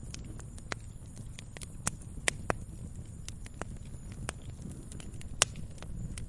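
Fireplace fire crackling: irregular sharp pops and snaps over a low steady rumble. The loudest pops come about two and a half and five and a half seconds in.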